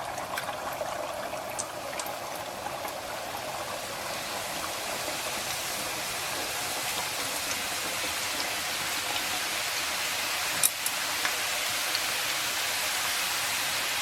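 Sanzi dough twists deep-frying in oil at about 160 °C: a steady sizzle that slowly grows louder, with scattered crackles and one sharp pop about ten and a half seconds in.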